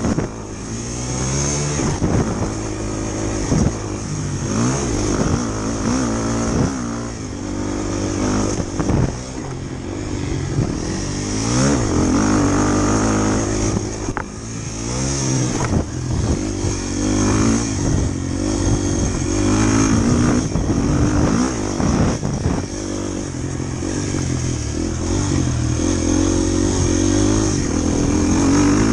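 Motorcycle engine running under way, repeatedly revving up and easing off as the rider works the throttle and gears.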